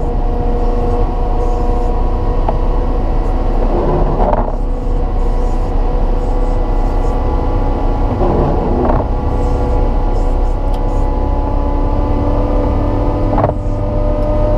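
Cat 926M wheel loader's C7.1 diesel engine running steadily under load while plowing snow, with a few short noisy surges every four to five seconds.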